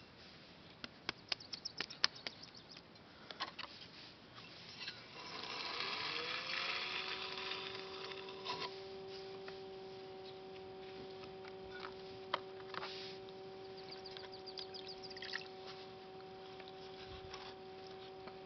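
Potter's wheel motor spinning up about five seconds in, its whir rising in pitch and then holding steady, with a few seconds of hiss as it comes up to speed. Before it, a scatter of small sharp clicks and taps.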